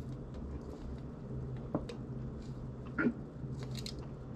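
Soda being sipped through a straw from a can, with a few faint mouth clicks and a swallow about three seconds in, over a steady low hum.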